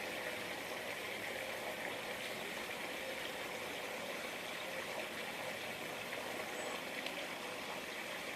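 Steady background hiss, with a faint, brief high chirp about six and a half seconds in.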